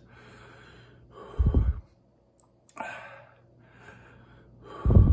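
A man's heavy, pained breathing against the burn of very hot sauce: sharp exhales and sighs, two of them blowing onto the microphone as loud low thumps, about a second and a half in and again near the end.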